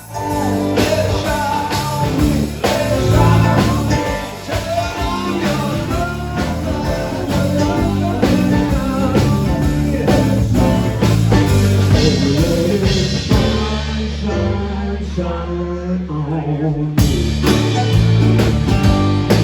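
Rock song with singing and guitar over a steady beat. Near the end the band drops to a held low note for a few seconds, then comes back in full.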